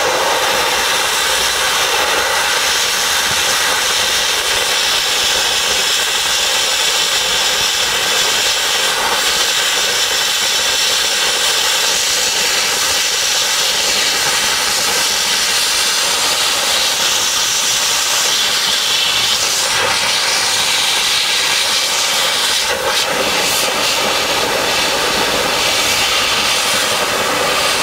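Dry ice blasting nozzle running: a loud, steady hiss of compressed air and dry ice pellets striking bronze metalwork, stripping old paint from it.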